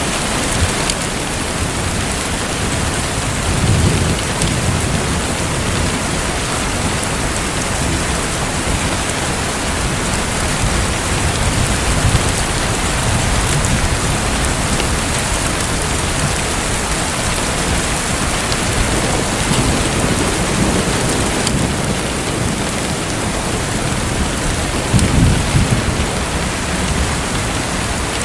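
Steady rushing water noise, like heavy rain, with low rumbles swelling up several times, the strongest about 4 seconds in and near the end.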